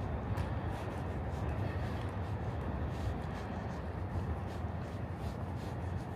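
Steady low rumble of city street background noise, with faint light taps over it.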